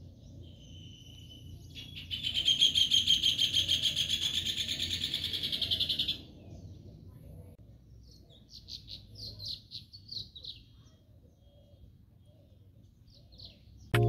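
Bird song outdoors: a loud, rapid high-pitched trill lasting about four seconds, then a few shorter chirps, over faint low outdoor background noise.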